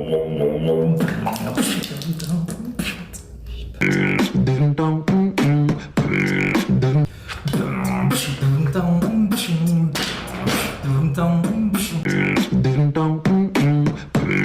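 Beatboxing: a fast stream of mouth-made drum hits and clicks over a low hummed bass line that shifts in pitch, with brief pauses about three and a half seconds in and again about seven seconds in.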